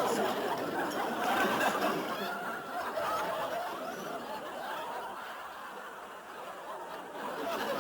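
Audience laughter and chuckling that dies away toward the end, trailing off into scattered snickers.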